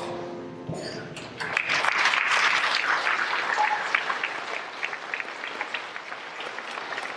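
Audience applauding at the end of a song. The last held notes of the music die away first, then the clapping starts about a second in, is at its loudest for the next couple of seconds and then thins out.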